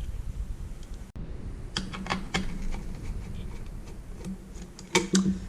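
Irregular small clicks and light taps of a screwdriver working the screws out of a monitor's metal chassis, with a few clustered clicks about two seconds in and again near the end.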